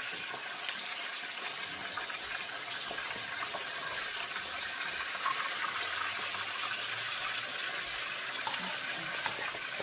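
Food cooking on a stovetop with a steady hiss and bubbling, from the pot of cornmeal and okra boiling and the fish frying, with a few faint clicks.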